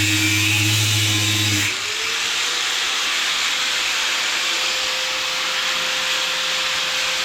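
A steady low hum that cuts off abruptly a couple of seconds in. It is followed by a power tool, likely an angle grinder, spinning up to a steady high whine with a hissing, rasping noise of the disc cutting through a weld on metal.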